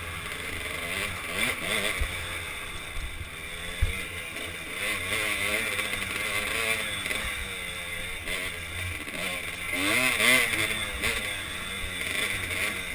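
A 2005 Kawasaki KDX200's two-stroke single-cylinder engine revving up and down as the dirt bike is ridden along a trail, heard from a helmet-mounted camera. The revs climb highest about ten seconds in, and there is a single sharp knock just before four seconds.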